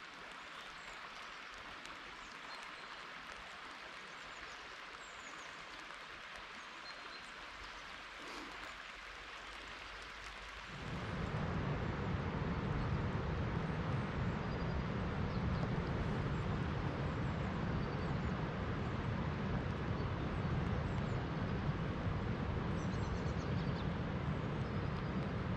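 Soft steady hiss of rain on the river with a few faint bird chirps; about eleven seconds in, a much louder steady rushing noise with a deep rumble takes over: the flooded Lahn river pouring over its weir.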